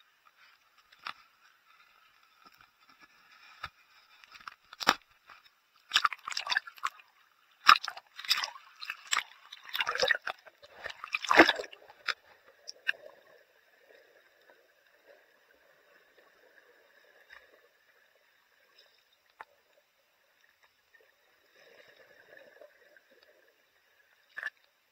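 Sea water splashing and sloshing against a camera held at the waterline, loud and choppy for several seconds. About halfway through it gives way to a faint, muffled underwater hush with a few soft ticks as the camera goes under.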